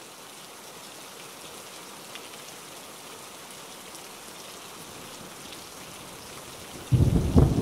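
Steady rain falling, an even hiss. Near the end a sudden loud low rumble breaks in over it.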